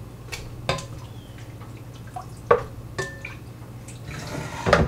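Soft roasted tomatoes and chiles, wet with soaking water, being spooned into a plastic blender jar: a few sharp clicks of the metal spoon against the jar and wet drips and plops. Near the end comes a short splash of liquid pouring in, then louder knocks.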